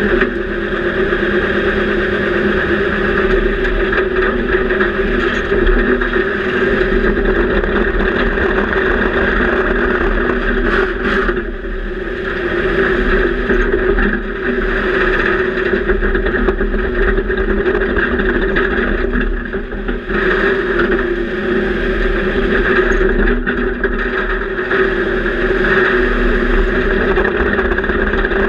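Panzer I tank's engine running, heard from inside the crew compartment. The level dips briefly twice, about 12 and 20 seconds in.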